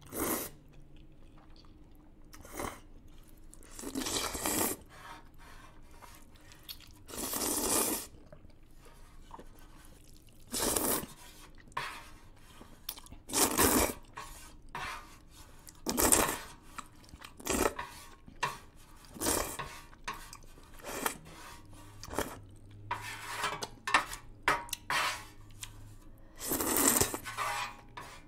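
Instant noodles slurped and chewed in repeated bursts of about a second each, with chopsticks knocking against a metal baking pan.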